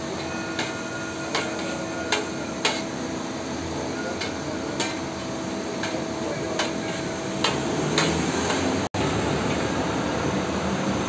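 Metal spatula clacking and scraping on a steel griddle as a cheese and tomato toast filling is chopped and mixed: sharp knocks about once a second over a steady background hum.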